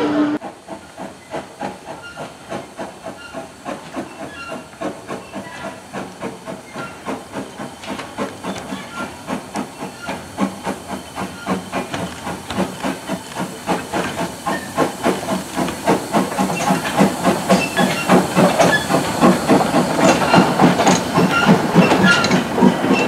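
Industrial saddle tank steam locomotive working a freight train: a quick, even run of exhaust beats over steam hissing, growing louder as it approaches and draws past.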